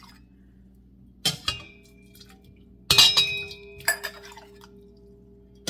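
A mug clinking against a bowl as it is dipped in to scoop out liquid. There are four knocks: two close together about a second in, the loudest near three seconds, and one more about a second after that. The knocks leave a clear ringing tone that fades slowly.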